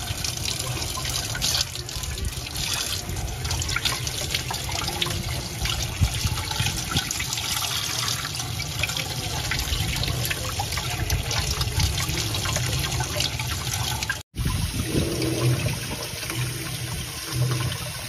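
Tap water running steadily onto a plastic washing machine lint filter and splashing off its mesh into the sink as the dust is rinsed out. The sound cuts out for a split second about fourteen seconds in, then carries on.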